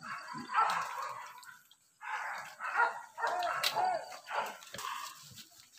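Boar-hunting dogs barking and yelping in a series of short bursts, with a couple of quick high yelps about three and a half seconds in.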